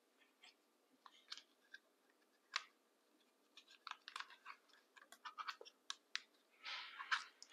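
Faint, scattered clicks and scratches of plastic parts being handled, as a phone holder is screwed onto a selfie stick's handle.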